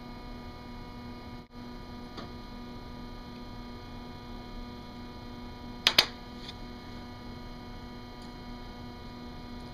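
Steady electrical hum, with two sharp clicks in quick succession about six seconds in.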